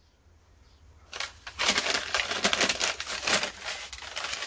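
Close, dense crackling and rustling, many rapid crunchy clicks, starting about a second in and going on without a break.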